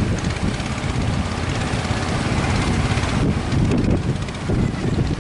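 Wind rumbling on the microphone over the steady drone of a boat's outboard motor.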